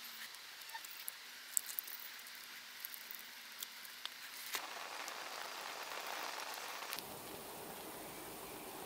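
Faint hissing and crackling with scattered small clicks from hot melted resin on cones; about seven seconds in it gives way to the steady hiss of a resin-soaked cone torch burning.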